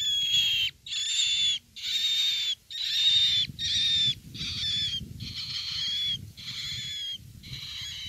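Young myna (fledgling sáo) held in the hand, giving a string of harsh, rasping calls, each under a second, about one a second.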